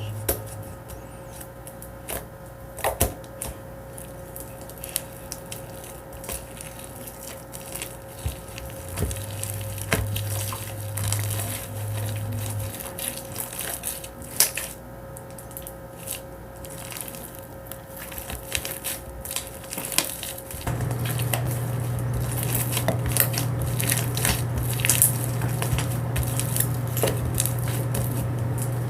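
Sticky homemade slime with dish soap mixed in, squished and stretched by hand, giving irregular wet squelches and sharp little pops. A low steady hum underneath gets louder about two-thirds of the way through.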